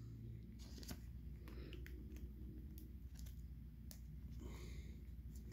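A thin clear plastic card sleeve being handled as a thick autograph trading card is worked into it: faint scattered clicks and a soft rustle of plastic a little past four seconds in. The card is too thick for the thin sleeve.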